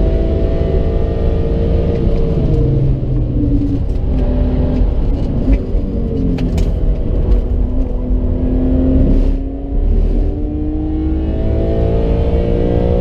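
BMW E46 M3's straight-six engine at full effort on track, heard from inside the cabin. The engine pitch climbs and drops repeatedly through gear changes, with a brief lift off the throttle about nine seconds in. Road and wind noise run underneath.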